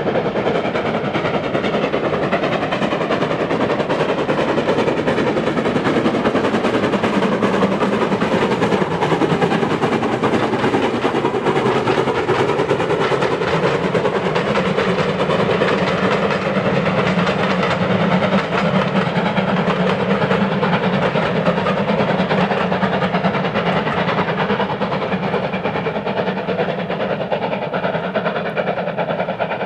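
Steam locomotive hauling a passenger train past, working hard, its chimney exhaust beating rapidly over the rumble of the carriages on the rails.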